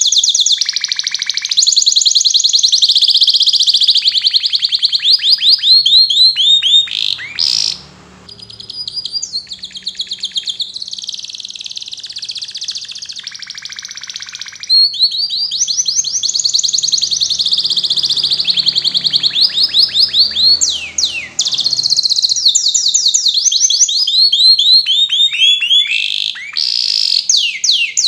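Domestic canary singing: long runs of very fast trills and rolls. About seven seconds in the song drops to a softer, quieter passage, then loud rapid trills return from about fifteen seconds, with a few quick falling notes around twenty seconds.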